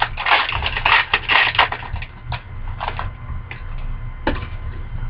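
Trading cards being handled and slid past one another: a quick run of rustling swishes, then single card flicks every half second to a second. A low steady hum runs underneath.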